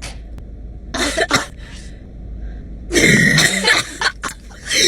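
A person coughing and clearing their throat in short bursts: two quick ones about a second in, a louder, longer one about three seconds in, and another near the end.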